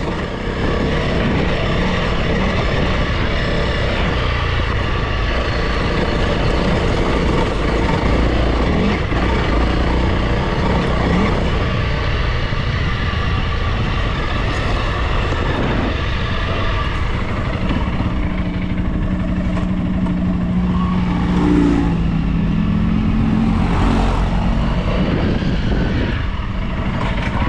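Honda CRF300L's single-cylinder four-stroke engine running as the bike rides over a gravel track, mixed with steady wind and road noise. The engine note changes pitch a few times near the end.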